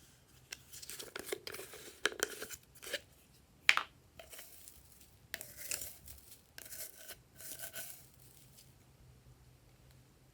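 Hands stretching and pressing glossy slime, giving irregular bursts of crackling and popping over several seconds, with one sharp, loud click about three and a half seconds in.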